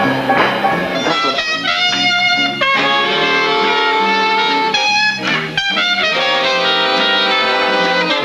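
Big-band swing jazz, with brass and saxophones playing long held chords that shift every couple of seconds.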